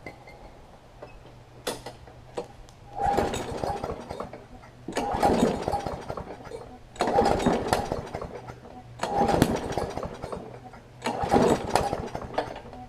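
Briggs & Stratton Classic engine on a Craftsman push mower being pull-started five times, about two seconds apart, the engine turning over briefly on each pull without keeping running. The owner suspects a little water in the fuel.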